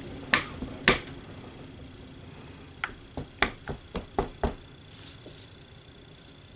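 Light knocks and taps of a hanger swirl tool against a soap mold as it is worked through the soap batter. There are two knocks near the start, then a quick run of about eight more around the middle.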